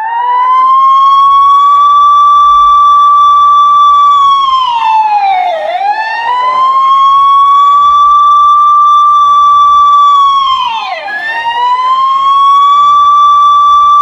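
Police siren wailing: a high tone that holds steady for several seconds, then swoops down and climbs back up, twice.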